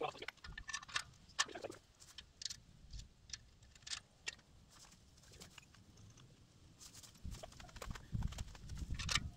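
Scattered light clicks and knocks of metal solar-tracker parts being handled and fitted onto the top of a steel mounting post, then a low rumble near the end.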